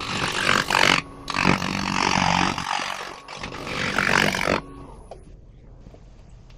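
Wood spinning on a lathe being worked against a tool in loud, noisy scraping bursts with a short break about a second in; the bursts stop about four and a half seconds in, leaving a faint steady hum.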